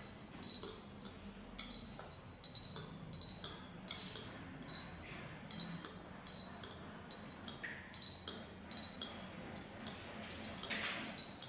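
Chopstick tips and beans clinking against white porcelain plates, a light, sharp clink about twice a second, irregularly spaced, as beans are picked up one at a time and set on the other plate. A brief scrape comes near the end.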